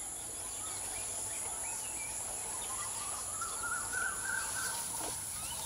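Outdoor evening ambience: steady high-pitched insect trilling, crickets or cicadas, with scattered faint bird chirps and a faint drawn-out tone midway through.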